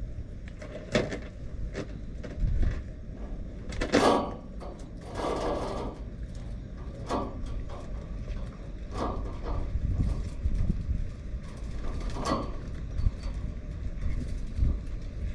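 Typhoon wind buffeting the microphone in a steady low rumble, broken by a handful of sharp knocks and rattles and a brief rushing gust about five seconds in.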